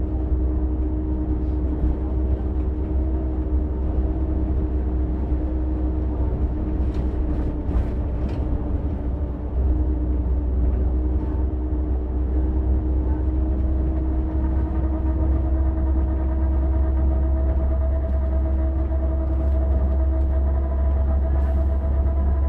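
Volvo bus running, recorded by its radiator: a steady low rumble under a droning hum. A higher whine comes in about 13 seconds in and holds.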